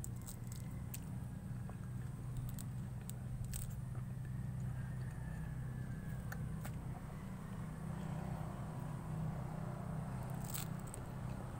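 Pomelo pulp being torn by hand from the segment membrane: scattered small, wet crackling clicks, the loudest near the end, over a steady low hum.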